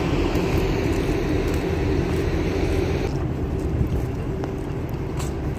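Steady low rumble of a moving vehicle, road and engine noise with a constant hum; the higher hiss drops away about three seconds in.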